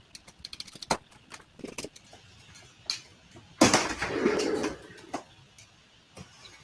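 Cardboard shipping box and its packing being handled: light clicks and taps, a sharp snap about a second in, then a sudden loud burst of scraping and rustling about halfway through that tails off.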